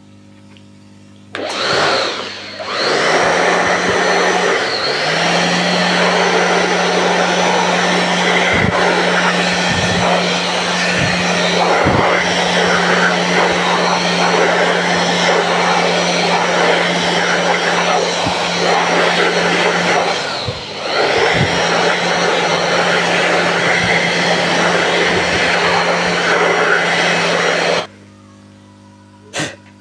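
Electric cool-air blower running, its nozzle blowing dust and glue debris out of the voice-coil gap of a 15-inch bass speaker. It is switched on about a second and a half in and its whine rises as it comes up to speed. It runs steadily with a short dip about two-thirds of the way through and is switched off near the end.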